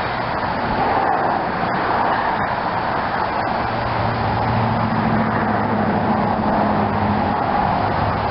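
Steady vehicle noise, a car's engine hum and road noise, with the low hum growing stronger about halfway through.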